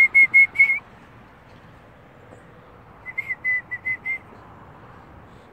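A person whistling a run of short, quick notes, about six at the start and another five or so about three seconds in, calling for the chickens.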